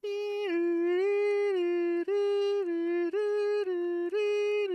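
Electronic sound module from the DeAgostini R2-D2 build kit playing a tone through its small speaker, stepping back and forth between a lower and a higher note about every half second, with brief breaks.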